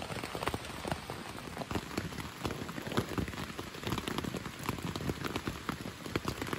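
Steady rain falling on a tent, heard from inside, with many individual drops tapping irregularly on the fabric.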